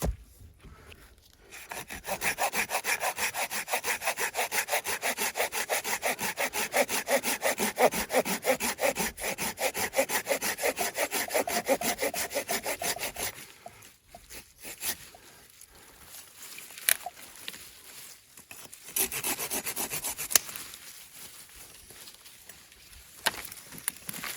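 Hand saw cutting through firewood, in fast, even back-and-forth strokes, about five a second, for roughly twelve seconds before it stops. A short second bout of strokes comes later.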